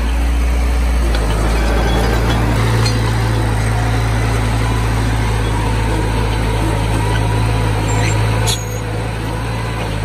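Bulldozer's diesel engine running steadily under load with a deep, even drone. About eight and a half seconds in it eases off a little with a short click.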